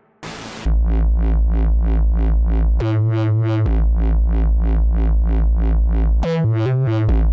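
Electronic music: synthesizer over a deep steady bass with an even pulse of about four beats a second, opening with a short noise swell. The bass drops out briefly twice, about three seconds in and near the end.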